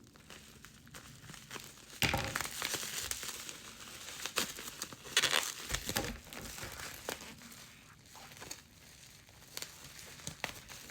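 Packaging crinkling and rustling as a parcel is unwrapped by hand, in uneven bursts that are loudest about two seconds in and again around five to six seconds.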